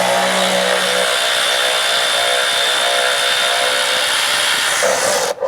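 Handheld power tool running steadily as it spins out a 10 mm bolt, cutting off abruptly near the end.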